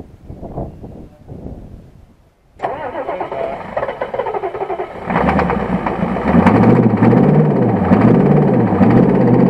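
Ford 6.9-litre IDI diesel V8 cranked by the starter, catching about halfway through and then running loudly, its idle speed rising and falling in a steady rhythm.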